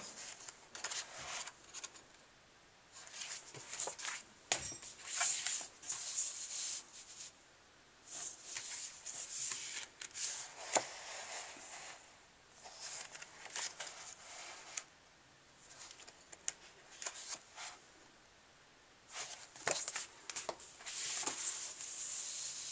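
Pages of a large coloring book being turned and smoothed by hand: several bursts of paper rustling and soft page flaps with short pauses between, and a few light taps and clicks.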